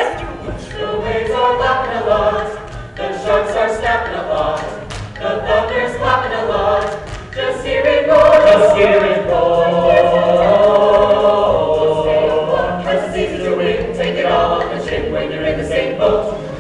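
A stage-musical cast singing together as a chorus over instrumental accompaniment, swelling to a loud, long-held chord in the middle.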